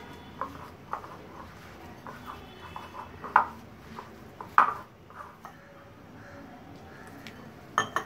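Semolina dough being mixed by hand in a glass bowl, with scattered short clicks and knocks against the glass, the loudest about three and a half and four and a half seconds in and another just before the end.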